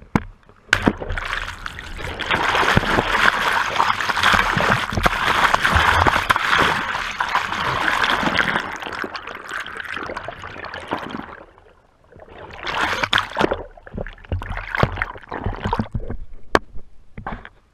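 An action camera breaking loose from its suction-cup boom mount with a sharp click, then dunked in lake water: a long stretch of loud rushing, gurgling water on its microphone, followed after a short lull by several bursts of splashing as it tumbles at the surface beside the kayak.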